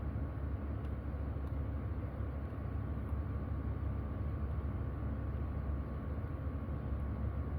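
Steady low rumbling background noise with a faint steady high hum running through it.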